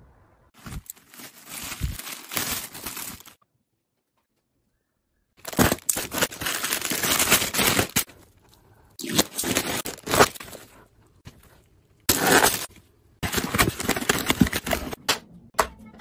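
Crinkling and rustling of plastic packaging and handling of plastic household items, in several bursts separated by short gaps, with a few sharp clicks among them.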